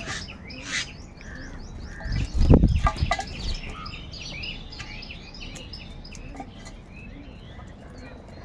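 Crows calling, with a loud low rumble about two to three seconds in, followed by a busy run of short, higher bird calls.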